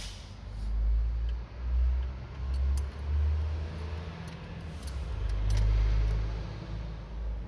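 Steel clutch plates and friction discs clinking lightly against metal as they are handled and seated inside an automatic transmission case. Several dull, low rumbles from handling are louder than the clinks.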